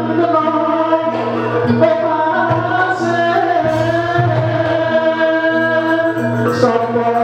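Live Javanese gamelan music accompanying a barongan dance, with a singer holding long, slowly bending notes over the ensemble.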